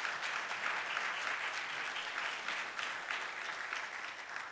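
A church congregation applauding, a dense patter of many hands clapping that eases a little near the end.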